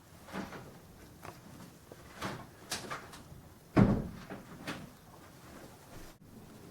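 Scattered light knocks and clicks, with one louder thump a little under four seconds in.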